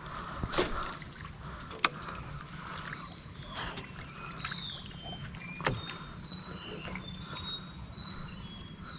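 A few sharp knocks and clicks from the small wooden boat and fishing gear while lures are retrieved, over a steady low background. Short high chirps, some falling in pitch, come through from a few seconds in.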